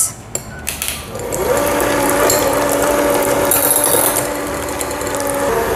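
Electric hand mixer whipping chilled all-purpose cream in a glass bowl. After a few knocks of the beaters, the motor comes up to speed about a second and a half in and runs with a steady whirr.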